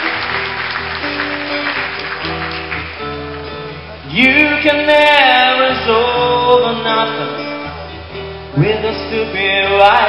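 Acoustic guitar playing live, with a male voice singing drawn-out phrases that slide in pitch about four seconds in and again near the end.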